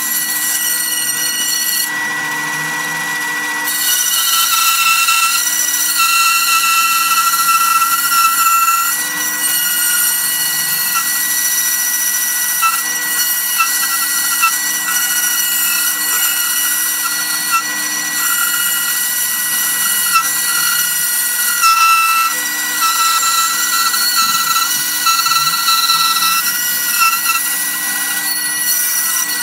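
Bandsaw running and cutting through a sheet of wood along a curve: a steady machine whine under a rasping cut that comes and goes as the board is fed and turned, with a short lull a couple of seconds in.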